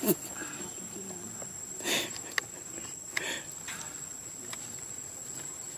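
Steady high-pitched drone of insects, with a couple of brief noises about two and three seconds in.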